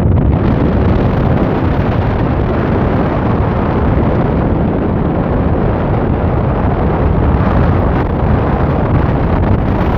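Strong wind buffeting the phone's microphone: a loud, steady rush with a heavy low rumble.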